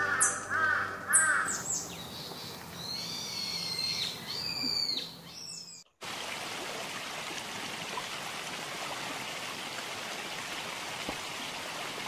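Bird calls, repeated chirps and swooping whistles, as background music fades out. After an abrupt cut about halfway through, a steady rush of flowing stream water.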